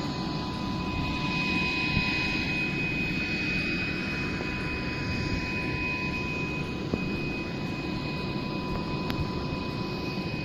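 Steady rushing noise with two thin, high whining tones held constant underneath, like a large machine or ventilation running.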